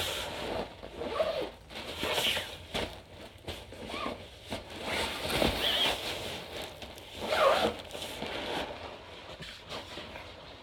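Nylon fabric rustling and crinkling in irregular bursts as a dog agility tunnel is stuffed into its nylon carry bag, with one louder scrunch about two thirds of the way through.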